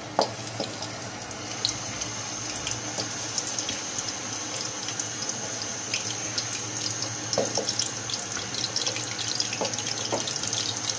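Nargisi kofte, balls of minced mutton around boiled eggs, sizzling in shallow hot oil in a steel kadai over a low flame, with steady hiss and fine spattering crackle that grows a little stronger after the first couple of seconds. A few short knocks come as more balls are set into the pan, once right at the start and a few times near the end.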